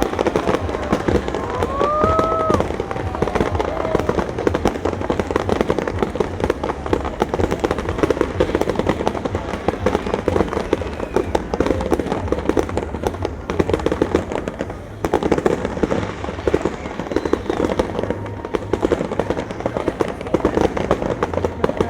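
Fireworks going off in a rapid, continuous barrage of bangs and crackling, with a brief rising whistle about two seconds in.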